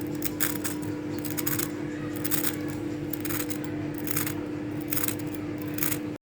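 Light metallic clinks and scrapes, often in pairs, about two a second, like a metal utensil against a metal bowl or pan, over a steady low hum; the sound cuts off abruptly near the end.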